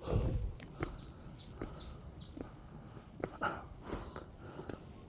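A songbird singing a quick run of about seven short, high repeated notes, each dropping at its end, with faint footsteps on the path.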